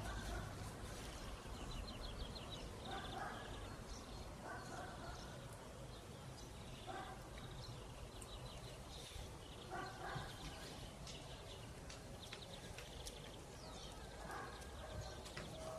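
Quiet garden ambience: small birds chirp and trill now and then, with a few short, lower calls scattered through.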